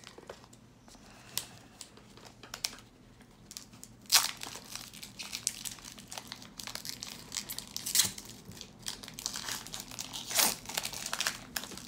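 Foil Pokémon TCG booster pack wrappers crinkling and being torn open, a dense run of crackles with louder ones about four, eight and ten and a half seconds in.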